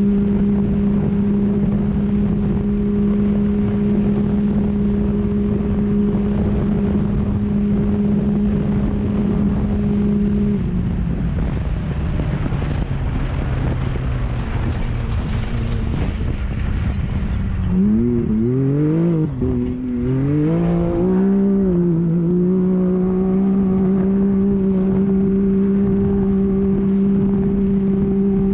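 Off-road race vehicle's engine running flat out at a steady high pitch over a constant rush of terrain and wind noise. About ten seconds in the pitch sags as the throttle eases. A few seconds later it revs up and down in quick blips, then settles back to a steady high pitch.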